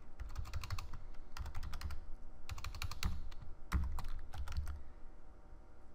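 Typing on a computer keyboard: a run of quick keystrokes in short bunches, tailing off near the end.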